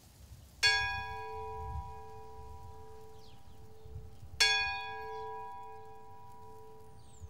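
Church bell struck twice, about four seconds apart, each stroke ringing on and slowly fading, over a low background rumble.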